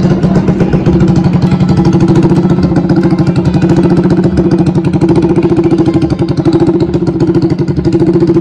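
Modified Yamaha Aerox scooter's engine idling steadily through an aftermarket multi-tip exhaust, loud and evenly pulsing with no revving.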